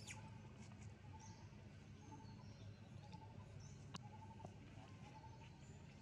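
Near silence: faint outdoor ambience with soft, short chirps repeating every second or so, and a single sharp click about four seconds in.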